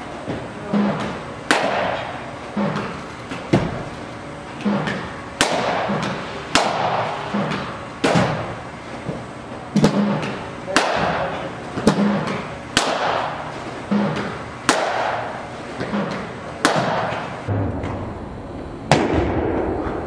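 Cricket bat striking a ball again and again, a sharp crack about every one to two seconds with fainter knocks in between, each echoing in the indoor net hall.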